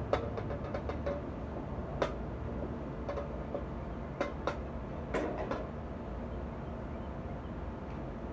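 Metal heat-lamp reflector being handled and wiped with a rag: light clicks and taps, a quick run of small ticks in the first second and then single sharp knocks scattered over the next few seconds, over a steady low background noise.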